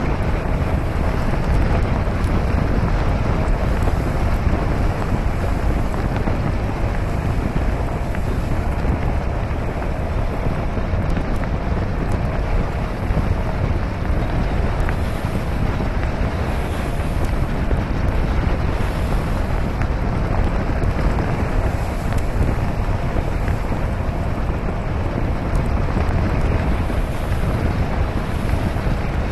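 Steady wind buffeting the microphone on the bow of a Tiara 50 Coupe motor yacht underway, with the rush of water along the hull beneath it and a faint steady hum.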